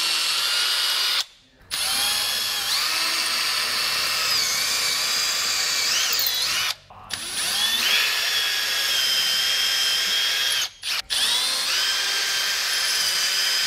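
Compact cordless drill pre-drilling anchor holes in a wall. It runs in four spells of one to five seconds with brief stops between them, its motor whine shifting in pitch as it goes.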